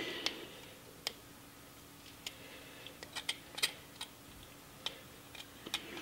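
Pocketknife blade cutting small grooves into a linden twig to divide the carved owl's tail feathers: faint, irregular clicks and ticks, about a dozen.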